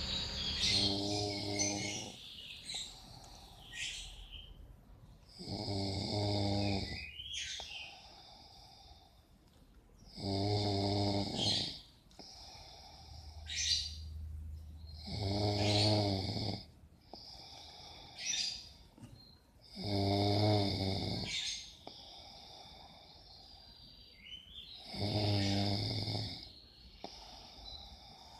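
A man snoring in his sleep: a rasping, pitched snore on each breath, coming six times at an even pace of about one every five seconds, with quieter breathing between.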